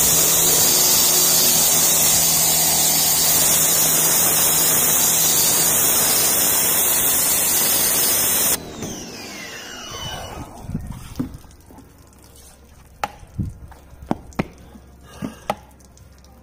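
Sun Joe electric pressure washer spraying soapy water through a foam cannon, a loud steady hiss over the pump motor's hum. About two-thirds of the way through, the spray cuts off suddenly and the motor runs down with falling pitch, followed by a few sharp clicks and knocks.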